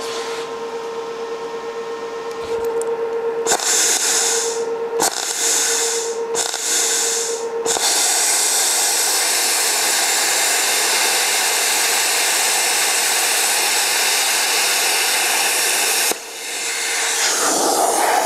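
Plasma cutter cutting steel plate to enlarge a hole. After a steady hum, the torch gives three short hisses, then a loud steady hiss for about eight seconds as the arc cuts. The hiss stops abruptly a couple of seconds before the end, then air hisses through the torch again.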